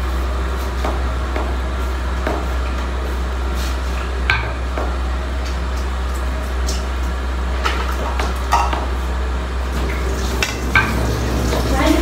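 A metal spoon scraping and tapping against a metal pot while chicken momo filling is scooped out, a few light clicks and knocks scattered through, over a steady low hum.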